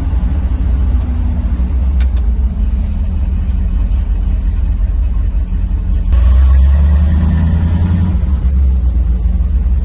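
Inside the cab of a loaded 1977 Ford F-150 pickup on the move: engine and road noise as a steady low rumble, growing louder about six seconds in.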